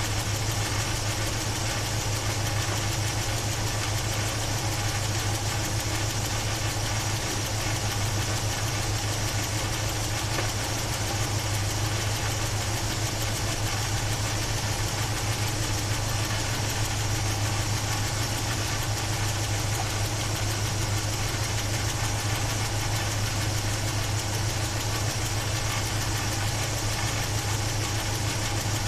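Chevy 350 small-block V8 idling steadily, heard close from the open engine bay; it is the engine whose top-end noise the owner is trying to identify.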